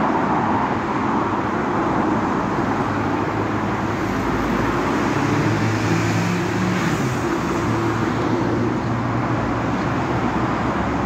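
Road traffic noise: a steady wash of passing cars, with one vehicle's engine hum swelling through the middle and dipping in pitch about two-thirds of the way through.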